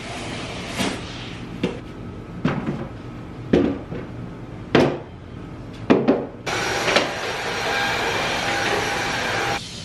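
A series of knocks and clunks as decor items are set down on a cabinet top. About six and a half seconds in, a cordless stick vacuum switches on, runs steadily for about three seconds and cuts off near the end.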